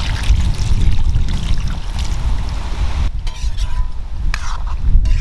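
Wind buffeting the microphone as a heavy, uneven low rumble, with a steady hiss over the first three seconds or so.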